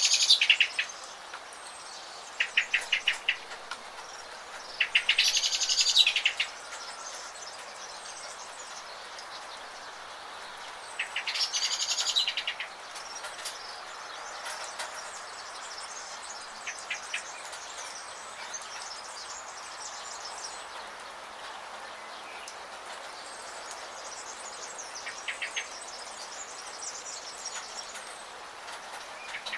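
Small songbirds singing in short bursts of rapid high chirps, over a steady hiss of falling rain. The loudest bursts come near the start, about five seconds in and about eleven seconds in, with fainter chirps later.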